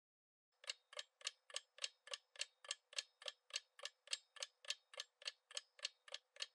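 Clock-tick sound effect of a quiz countdown timer, faint, evenly spaced at about three to four ticks a second, starting about half a second in.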